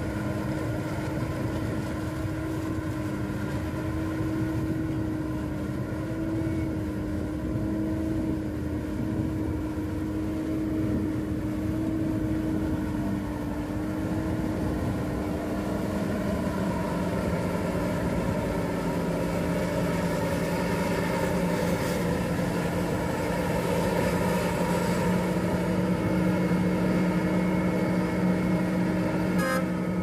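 Krone BiG X self-propelled forage harvester running while it chops silage corn: a steady machine drone with a held humming tone, growing a little louder in the second half.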